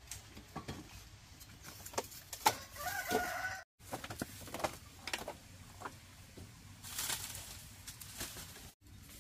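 A chicken gives a short clucking call about three seconds in, over scattered light knocks and clicks of a pot and firewood being handled at an open hearth.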